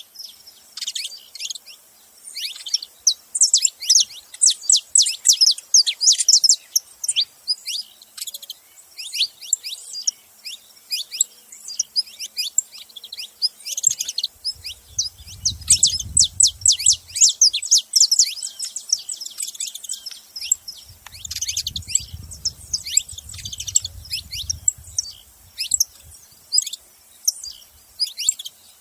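Saffron finches chirping: rapid, high, sharply falling chirps in dense flurries that come and go throughout. A faint low rumble shows up twice underneath, around the middle and again later.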